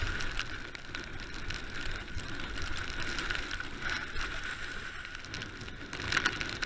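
Mountain bike riding fast down a rough dirt track: a continuous noise of tyres and rattling bike parts with frequent small knocks, and a louder jolt about six seconds in.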